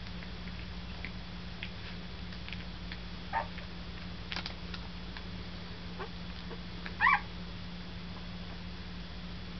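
Week-old German Shepherd puppies squeaking while nursing: a brief squeak about three and a half seconds in and a louder one about seven seconds in, with faint small clicks over a steady low hum.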